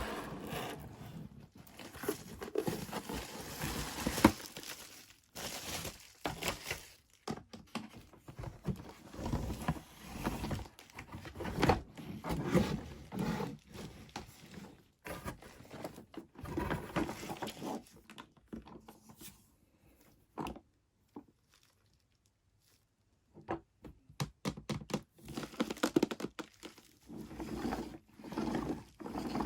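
Unboxing sounds of a toy kitchen set: packaging crinkling, pieces scraping and light knocks, in irregular bursts. About two-thirds of the way through there are a few seconds of near silence.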